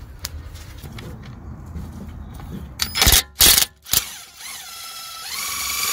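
Power driver with a T45 Torx bit undoing the upper brake caliper guide-pin bolt. A few short loud bursts come about three seconds in, then the motor whine rises and runs on near the end as the bolt comes free.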